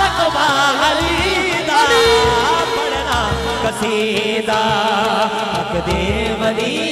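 Male vocalist singing a Punjabi devotional qasida into a microphone, drawing out long ornamented notes with a held note about two seconds in, over low repeated drum beats.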